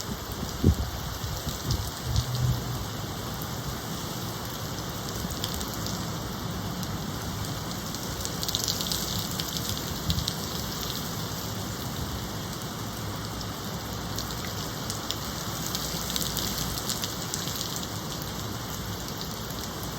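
Steady rain falling on surfaces, swelling louder for a few seconds around the middle and again near the end, with a few low thumps in the first few seconds.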